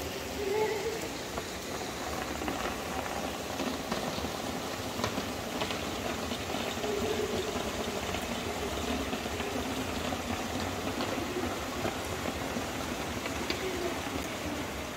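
Steady hiss and patter of falling water on wet pavement, with faint voices now and then.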